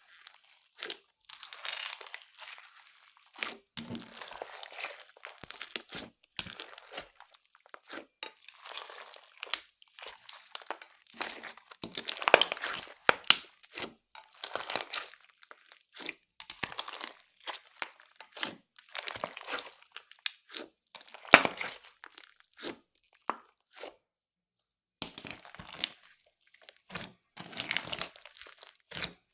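Clear slime with makeup and glitter mixed in, kneaded and stretched by hand, crackling and popping in repeated bursts a second or so long. There is a short pause about three-quarters of the way through.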